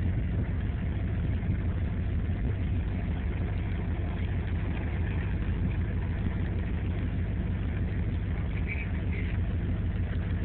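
Engine idling with a low, even rumble that holds steady throughout.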